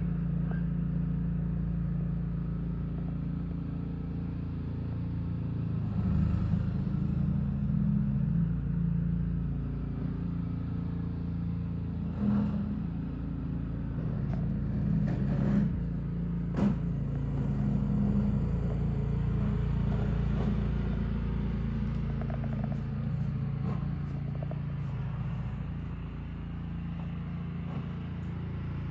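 An engine running steadily while snow is being cleared, with a few sharp knocks and clatters in the middle.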